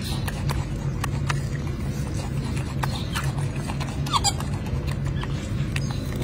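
Golden snub-nosed monkey eating, with scattered small clicks and a brief high squeak about four seconds in, over a steady low hum.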